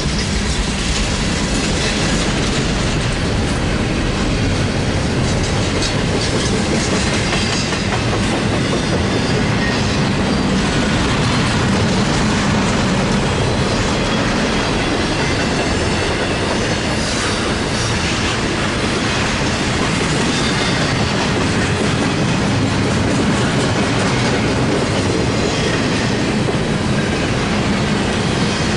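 CSX intermodal freight train's cars rolling past: a steady, loud rumble and clatter of steel wheels on the rails as refrigerated boxcars and then container well cars go by.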